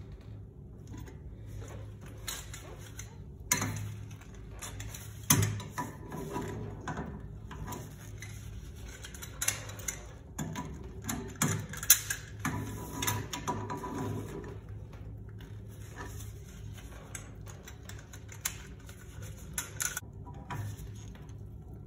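Irregular metallic clicks and clanks of a pliers wrench against the chrome fittings of a Sloan flushometer valve, sharpest a few seconds in and around the middle, over a steady low hum.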